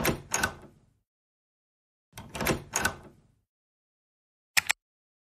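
Clicking sound effects: a short run of sharp clicks at the start, another run about two seconds in, and a quick double click near the end, with dead silence between.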